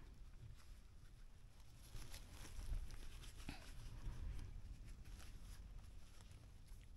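Faint rustling and scattered steps on dry leaf litter and rocky ground, a little busier between about two and four and a half seconds in, over a low wind rumble on the microphone.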